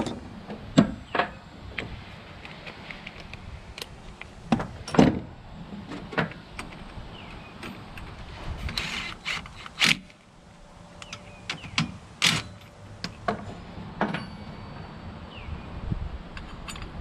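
Scattered metallic clanks and knocks of tools and fasteners working on a Walker mower's engine and frame, with a short burst from a handheld cordless power tool about nine seconds in.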